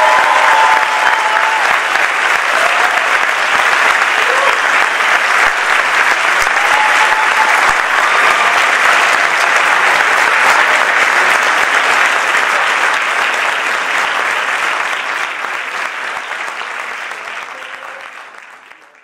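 Theatre audience applauding steadily at the end of a folk dance performance, fading out over the last few seconds.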